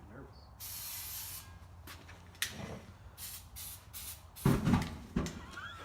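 Handling noises: a stretch of hissing rustle early on, a sharp click, more short bursts of rustling, then a few heavy knocks, the loudest sounds, about four and a half to five seconds in.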